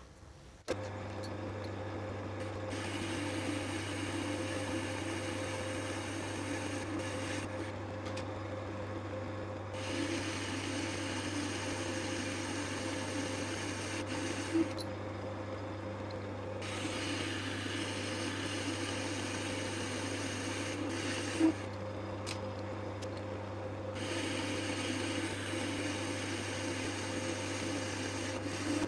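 Metal lathe motor starting about a second in and running steadily while turning a diameter on a bar, with a hissing cutting noise over the hum that stops for a couple of seconds three times, between passes.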